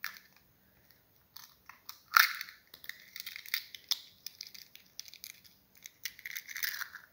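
A raw egg cracked against a bowl: one sharp crack about two seconds in, then crackling and clicking of the eggshell being broken open and pulled apart, with more shell crackling near the end.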